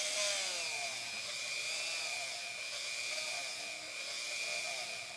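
Dremel rotary tool running at high speed with a felt polishing wheel pressed into a bar of white polishing compound, loading the felt. A steady high whine, its lower tones wavering up and down.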